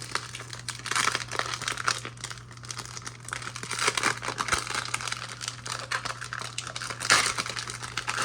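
Oversized trading card pack wrapper crinkling and tearing as it is opened by hand, in irregular flurries, louder about a second in, halfway through and near the end.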